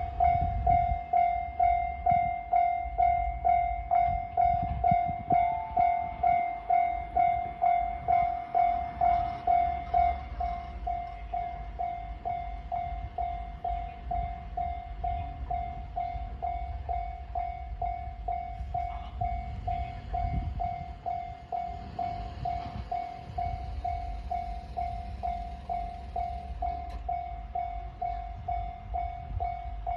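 Japanese railroad crossing warning bell, the electronic "kan-kan" alarm, ringing steadily at about two strikes a second, dropping to a lower volume about ten seconds in. A low rumble runs underneath at times.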